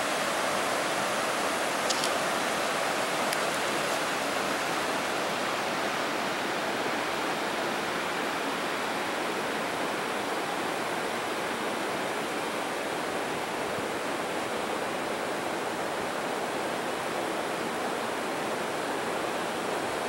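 Rocky river rapids: a steady rush of water flowing over boulders and small falls.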